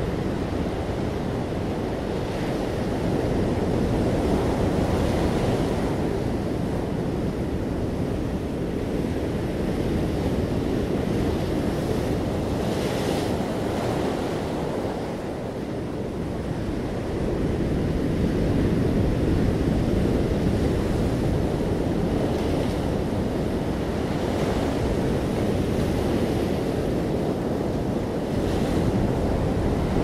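Ocean surf breaking among rocks and washing up over a sandy beach: a continuous rush that swells and eases as each wave comes in.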